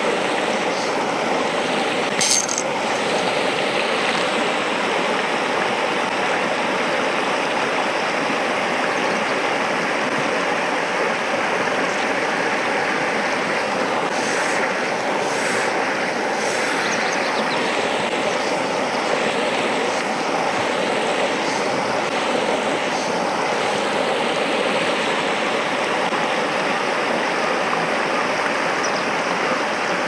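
Shallow mountain stream running over a stony riffle: a steady, even rush of water. A single short click sounds about two seconds in.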